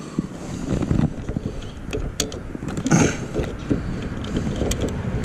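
Parts being worked by hand inside a truck door: rumbling handling noise with a heavier knock about three seconds in and a few sharp clicks of the door-handle linkage being fitted.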